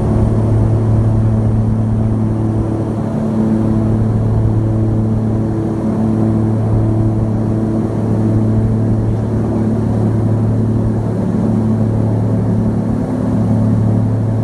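Piston engines and propellers of a small twin-engine plane droning steadily in climb, heard inside the cabin, with a slow, regular throb in the tone.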